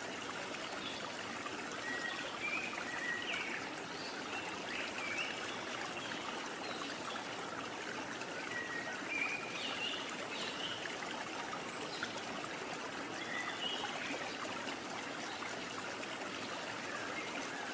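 Steady rushing water like a flowing stream, with short high chirps now and then.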